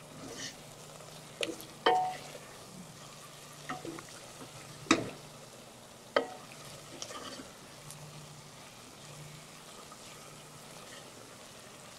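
Wooden spoon stirring chicken and spice paste frying in oil in a stainless steel pot: a faint sizzle with scattered knocks and scrapes of the spoon against the pot, the loudest about five seconds in.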